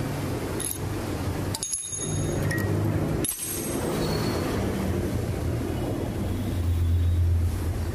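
A workshop machine running with a steady low hum, with a few light metallic clinks.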